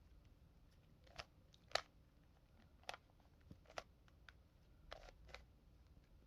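Rubik's Cube layers being turned by hand: about six scattered clicks and clacks of the plastic pieces, the loudest a little under two seconds in.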